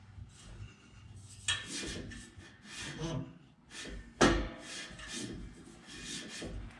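Exhaust pipe and stock resonator being wrestled loose: repeated scraping, rubbing strokes of metal on metal, with one sharp knock about four seconds in.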